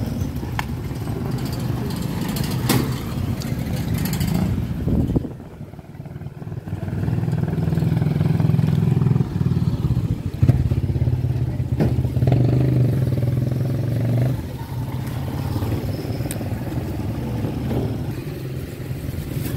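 Motorcycle engine of a tricycle (motorcycle with sidecar) running close by, a steady drone that grows louder for several seconds in the middle, then drops back to a lower running hum.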